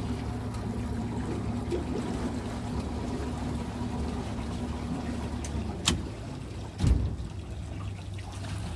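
Boat motor running low and steady with water lapping and trickling against the hull. A sharp click about six seconds in and a short low thump about a second later.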